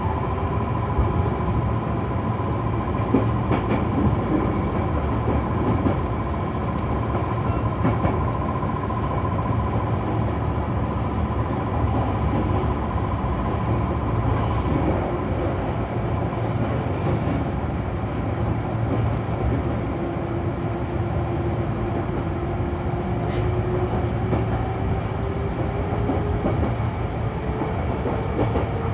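Kintetsu 6020 series electric train running, with a steady rumble of wheels on rail. A high whine sags slightly and fades about halfway through, and a lower whine climbs steadily in pitch near the end.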